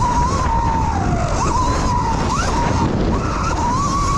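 Electric dirt bike's motor whining in a single high tone that rises and falls with the throttle. It sags about a second in and snaps back up twice, over a steady low noise.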